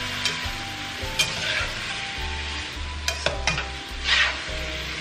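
Seafood (squid, prawns and mussels) sizzling in a nonstick wok while a metal slotted turner stirs it, with several sharp taps of the turner on the pan and a louder scrape about four seconds in.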